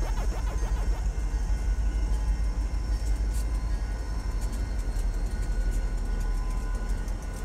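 A train of EMD SD40 diesel locomotives passing at close range, with a steady low rumble of engines and wheels.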